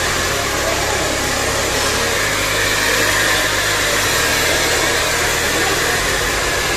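Handheld hair dryer blowing steadily: a continuous rush of air as it dries and styles hair.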